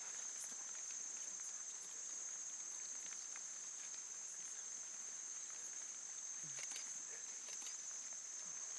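Insects in dense forest undergrowth giving a steady, unbroken high-pitched drone, with faint scattered clicks and rustles of vegetation.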